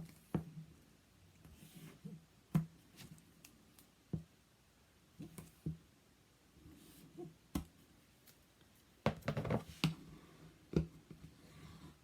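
Hands working paper and board on a craft table: scattered light taps and knocks, with a brief burst of rustling and scraping about nine seconds in.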